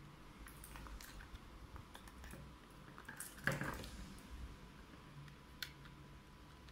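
Faint handling of cardboard packaging and plastic zip ties while the zip ties holding the headphones are worked free: scattered small clicks and rustles, with a louder click about three and a half seconds in.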